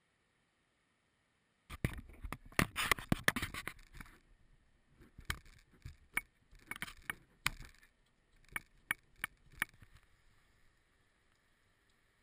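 Hand work at a car's radiator drain petcock and drain bucket: a quick flurry of scrapes and knocks, then a run of separate sharp clicks, as the petcock is worked loose to drain the coolant.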